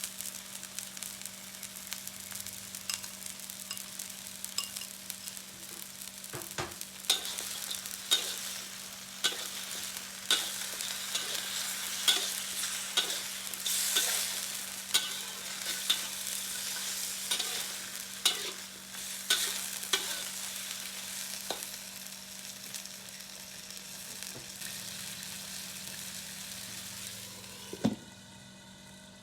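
Food sizzling in hot oil in a pan while being stirred, the spatula knocking against the pan about once a second through the middle stretch. Near the end a sharp knock, and the sizzling drops away.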